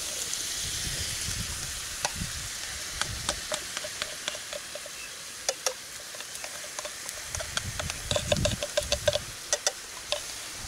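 Food sizzling in a frying pan over a wood fire, with chopsticks stirring and clicking against the pan. The clicks come thickest a little before the end.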